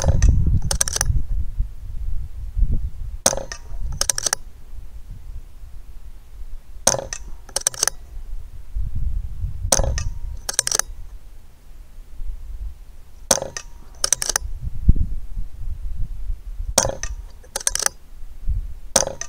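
Daystate Delta Wolf PCP air rifle firing a string of shots about every three seconds, each heard as a pair of sharp clicks under a second apart. Wind rumbles on the microphone.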